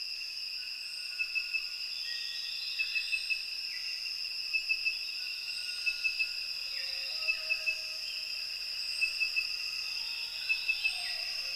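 Rainforest insect chorus: a steady high-pitched drone, with one louder insect pulsing in groups of three chirps about every second and a half.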